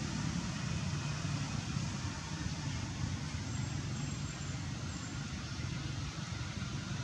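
Steady low rumble of road traffic, a constant background hum with no distinct events.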